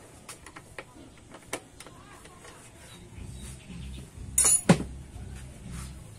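Light clicks and taps of a screwdriver and metal parts while a motorcycle rectifier regulator is fitted, with a louder metallic clatter and knock about four and a half seconds in. A low hum joins from about three seconds in.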